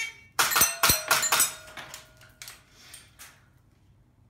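A fast string of airsoft pistol shots, the BBs clanking on small steel target plates: about five sharp metallic hits in little more than a second, one plate ringing on briefly, then a few fainter clicks.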